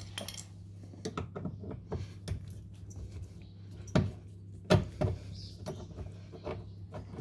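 Light clicks and taps of a screwdriver and small plastic and metal trim parts being handled while the door-handle trim is unscrewed and lifted off a car's inner door, with two sharper knocks a little past the middle. A steady low hum runs underneath.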